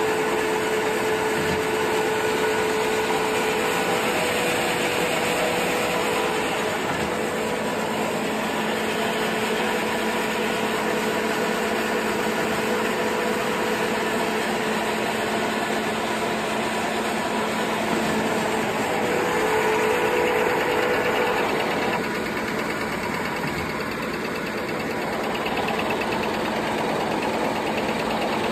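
A 300-size fully automatic table napkin paper machine running steadily at production: a dense, even mechanical running noise with a steady hum.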